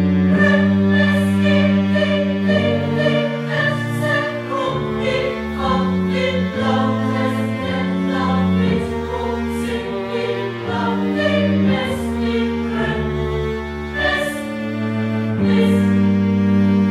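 Slow choral music: a choir singing long held chords over sustained low string notes, the harmony shifting every second or two.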